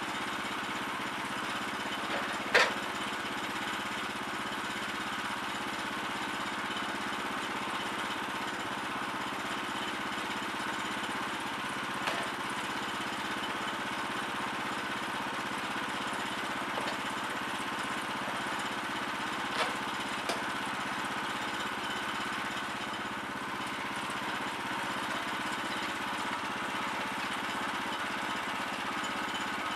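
Portable bandsaw sawmill's small gas engine running steadily, not under cutting load. A sharp wooden knock about two and a half seconds in, with a few lighter knocks later, as boards are set on the mill bed.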